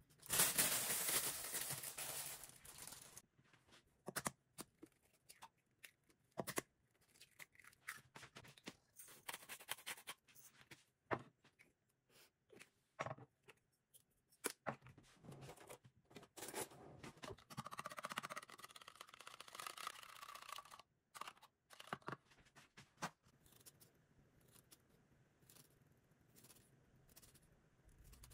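Kitchen food-prep handling sounds: scattered small clicks, taps and scrapes of a wire whisk in a plastic measuring cup and a knife on a plate and counter. A denser stretch of scraping comes a little past the middle, and a louder patch of noise fills the first couple of seconds.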